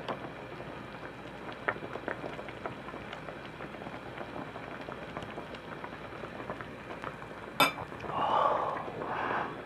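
Hot pot broth boiling steadily with small pops and bubbles, while a metal ladle scoops and clinks against the pot and a porcelain bowl. There is one sharp clink about three quarters of the way in, then a brief louder sound near the end.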